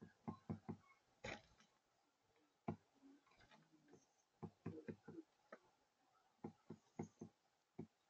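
Mourning dove pecking seed off a feeder tray: irregular sharp beak taps, some in quick runs of three or four.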